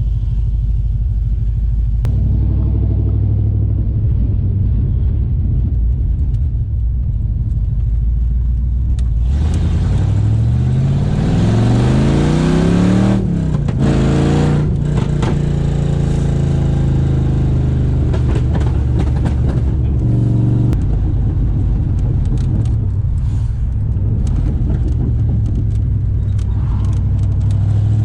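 HSV VS Clubsport's 5.0-litre Holden V8 running with no exhaust system fitted, heard while driving: a steady low engine note, then about ten seconds in it revs up with rising pitch for a few seconds and drops sharply at a manual gear change before running steadily on.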